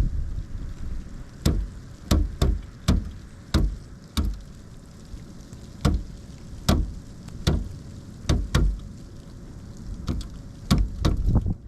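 Pileated woodpecker chiselling into wood with slow, irregular blows, often in pairs or short clusters about one to two a second, with a pause of a second or two in the middle.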